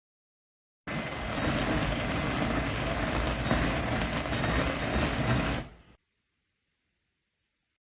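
Manual ceramic-burr coffee grinder being cranked, crunching coffee beans in a steady gritty grinding for about five seconds before cutting off abruptly.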